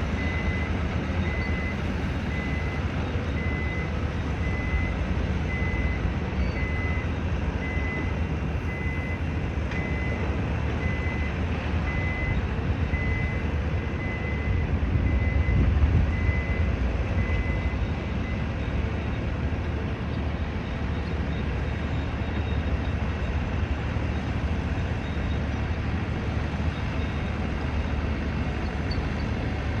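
A reversing alarm beeping at a steady, even rhythm on one high pitch, stopping a little past halfway, over a constant low rumble of heavy engines and traffic that swells briefly near the middle.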